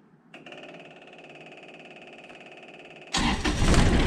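Onan 10 kW Quiet Diesel generator being started: a steady, even whir for about three seconds, then the diesel engine catches about three seconds in and runs, much louder.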